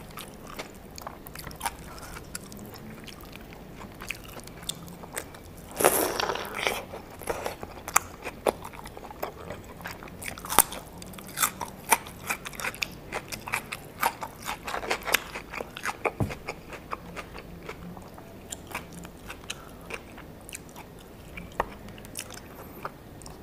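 Close-miked eating of crisp, fried birria tacos: crunching bites, loudest about six seconds in and again around fifteen seconds, with chewing and wet mouth clicks between.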